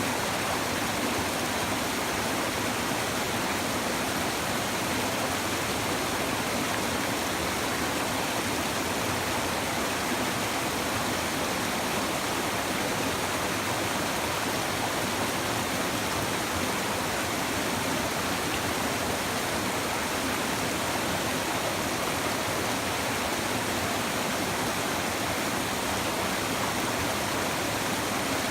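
A shallow river babbling over stones: steady rushing and bubbling water.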